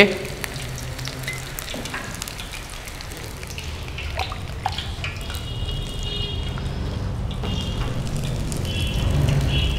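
Battered vegetables deep-frying in hot oil in a pan, a steady sizzle with a few small pops and clicks.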